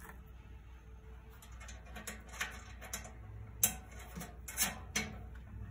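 Light, irregular metallic clicks and taps as a bolt and nut are handled and fitted at a bolt hole in a thin steel bin panel, about seven of them in the second half.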